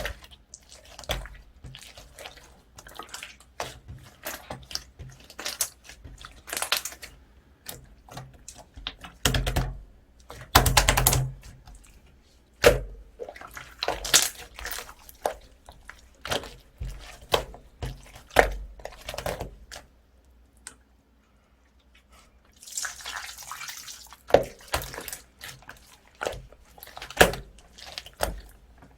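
Slime being kneaded and stretched by hand: irregular sticky clicks, pops and squelches, some louder bursts, with a short lull about two-thirds of the way through.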